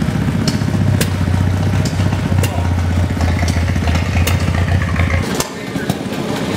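An antique engine running steadily with a fast, even low pulse, broken by scattered sharp clicks. About five seconds in the drone stops abruptly and gives way to quieter, lighter engine sound.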